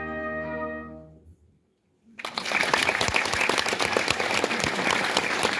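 A brass ensemble of trumpets and trombone holds its final chord, which dies away in the first second and a half. About two seconds in, audience applause breaks out and keeps going.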